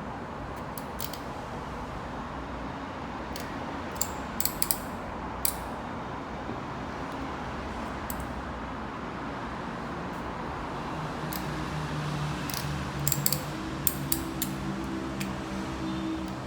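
Scattered sharp clicks and snips of a crimping tool and the trimmed Cat 6 wires being handled, in bunches at about one second, four to five seconds and thirteen to fourteen seconds, over a steady background hiss. A low hum comes in after about eleven seconds.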